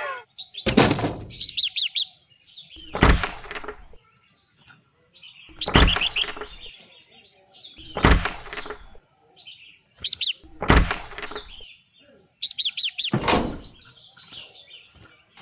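A bird chirping in short trills of quick high notes between loud, sharp knocks that come about every two and a half seconds, over a steady high-pitched whine.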